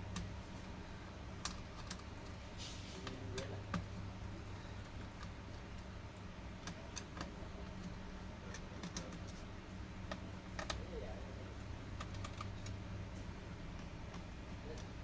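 Irregular light clicks and taps of laptop plastic parts and small hardware being handled and worked apart, over a low steady hum.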